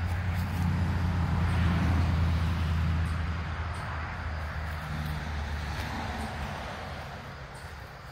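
A motor vehicle driving past, its low engine hum swelling about two seconds in and then fading away.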